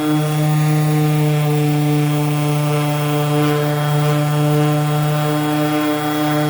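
A motor running steadily at one unchanging pitch, a constant hum, while 800-grit sanding of a car's clear coat goes on.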